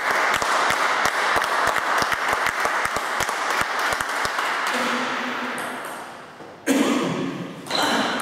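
Scattered clapping from a few spectators after a table tennis point, many irregular claps dying away about four seconds in. Two sudden louder sounds follow near the end.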